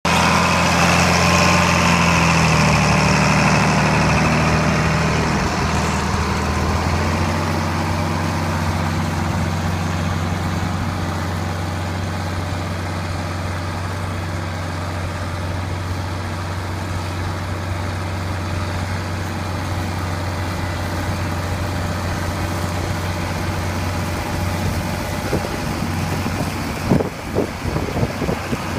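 John Deere 4020 tractor's six-cylinder engine running steadily under load while pulling a five-bottom moldboard plow through wheat stubble; its pitch drops a little about two to three seconds in. A few knocks near the end.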